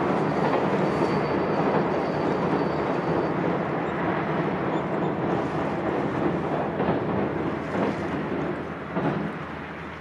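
Freight container train running over a steel girder railway bridge: a steady rumble with a few knocks near the end, fading away as the train moves off.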